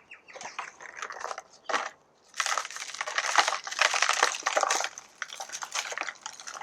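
Crisp crunching and crackling of a fleshy Echeveria 'Blue Bird' succulent stem being cut through for a headchop. It is densest for a couple of seconds in the middle, with lighter crackles before and after.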